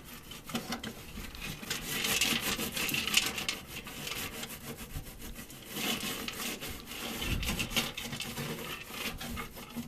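A damp microfiber cloth loaded with abrasive cleaning paste scrubbing grime off the inside of a microwave: a rubbing, rasping scrub that swells and eases in stretches.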